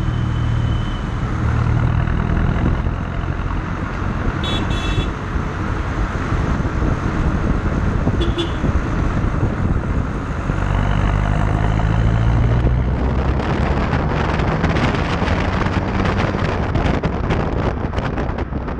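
Ford Aspire TDCi turbodiesel's partial free-flow exhaust running at the tailpipe as the car drives, with tyre and road noise; the engine note rises as the car accelerates about ten seconds in. Wind buffets the microphone through the last few seconds, and brief car horn toots sound about four and a half and eight seconds in.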